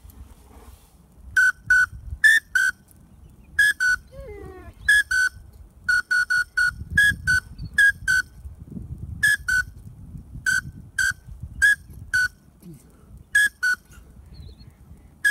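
Pintail duck whistle call blown in short, clear toots, mostly in quick pairs, repeated over and over to draw in pintails. About four seconds in there is a fainter, falling whine.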